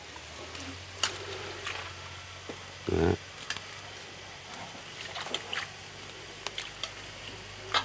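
Kitchen items being handled: scattered light clicks and knocks, with a dull thump about three seconds in, over a steady low hum.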